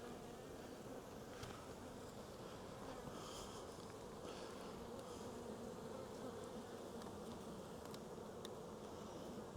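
Honey bees buzzing around an open hive, a steady hum with a few faint ticks of handling.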